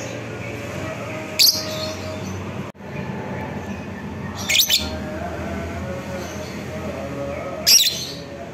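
Fischer's lovebird giving three short, shrill calls, about three seconds apart, over a steady background hum.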